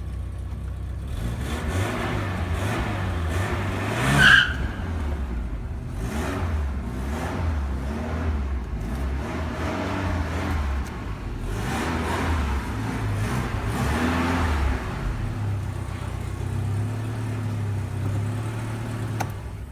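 Car engine revving and accelerating hard, its pitch rising and falling several times, with a brief high-pitched tyre squeal about four seconds in.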